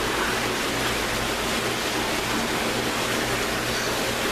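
Steady rush of running water from the koi pond's water feature, an even hiss with no breaks, over a low hum that pulses on and off.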